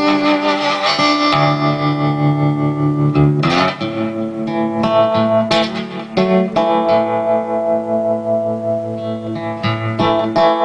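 Background music led by plucked guitar, with held low notes under it that change every second or so.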